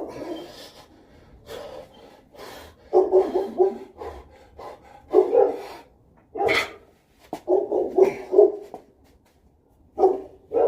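A dog barking in repeated bursts, some single barks and some quick runs of several. There is a sharp click about six and a half seconds in.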